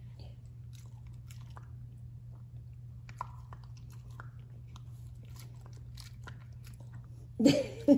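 A dog mouthing and chewing at a DNA cheek swab in its mouth, heard as faint scattered clicks over a steady low hum. A short louder voice comes near the end.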